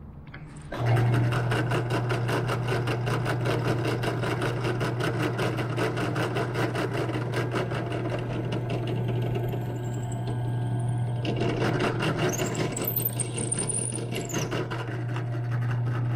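Electric drill running steadily with a low hum and a fast even chatter as it drills a bolt hole through a landing-gear hinge. It starts about a second in, and a faint high squeal comes and goes about twelve seconds in.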